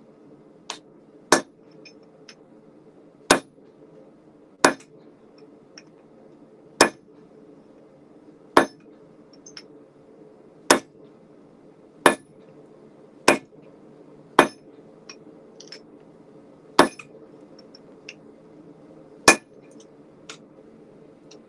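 Hand hammer striking red-hot steel on an anvil while a hot cut chisel is forged: about eleven sharp, ringing blows at an uneven pace, one every one to two seconds, with a few light taps between. A propane forge runs steadily underneath.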